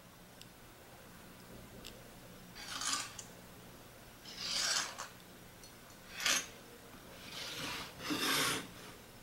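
A pencil scratching step lines onto a pine board along a framing square, with the square sliding on the wood between marks: about five short scraping strokes and one sharp tap a little past halfway.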